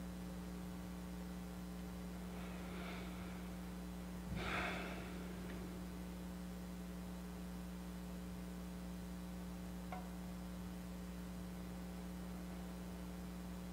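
Steady electrical mains hum, one low tone with fainter overtones above it, held through a silent pause. A brief soft noise rises over it about four seconds in, and there is a faint click near ten seconds.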